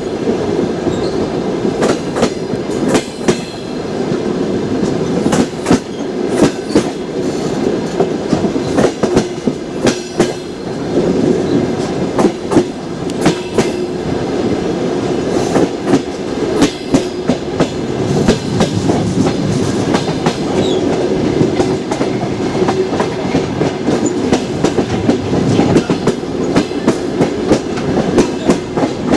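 Passenger train wheels clacking over rail joints as the train gathers speed after departing the station: a rapid, uneven clickety-clack over a steady rumble and hum.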